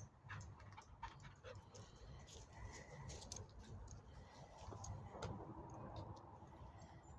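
Faint footsteps on a leaf-strewn dirt path: scattered small clicks and crunches over a low, uneven rumble.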